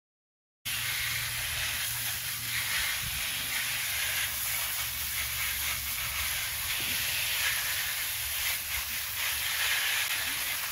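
Pistol-grip garden hose nozzle spraying water onto fresh fish fillets in a plastic basket and steel bowl, rinsing them: a steady hiss of spray that starts suddenly a little under a second in.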